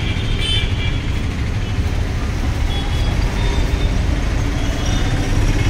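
Street traffic noise: a steady low rumble of road vehicles, with a few faint short high tones.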